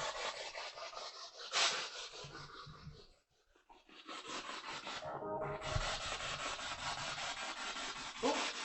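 Spirit box (SB7) sweeping through radio stations: a rapid, choppy rush of static with snatches of broadcast sound, dropping out for about a second partway through.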